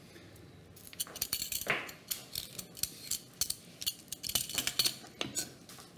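A cucumber being peeled with a blade: a quick, irregular run of short scraping strokes, about four a second, starting about a second in and stopping near the end.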